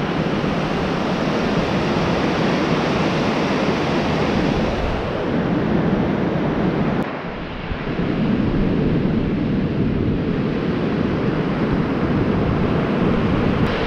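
Ocean surf breaking and washing onto the beach in a steady rush, dipping briefly about seven seconds in.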